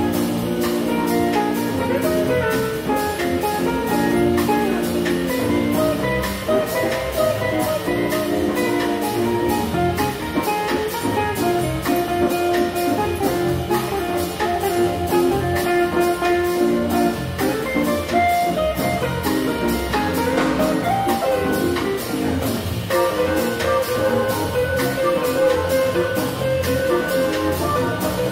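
Big band playing a jazz arrangement: brass and saxophones over a drum kit keeping a steady beat on the cymbals.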